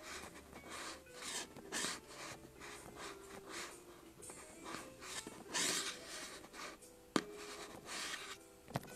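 Faint rustling and rubbing in a quiet room, with two sharp clicks, one about seven seconds in and one near the end.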